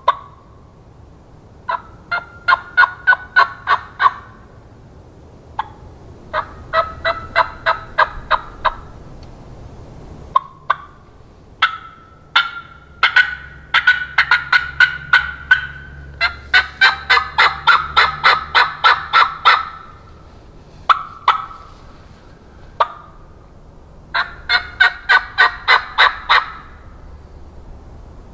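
Diaphragm turkey mouth call (Venom bat-wing cut, latex reeds) run as a hen turkey: five runs of rapid yelps, the longest about three seconds, with single short clucks between them.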